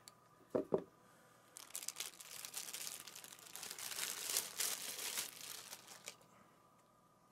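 Packaging crinkling and rustling as it is handled and unwrapped by hand: a couple of short crinkles under a second in, then a steady run of crackling from about a second and a half in until it stops about six seconds in.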